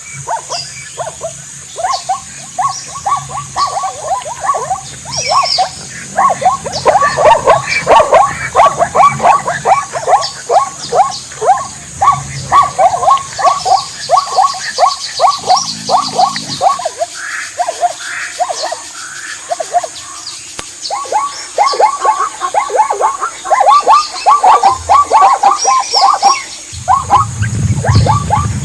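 Animals giving long runs of short, rapid calls, about three or four a second, with a brief lull midway. A low rumble comes in near the end.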